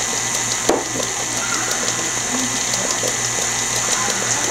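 KitchenAid tilt-head stand mixer running steadily, its flat beater churning thick chocolate cake batter in a glass bowl, with one light knock under a second in.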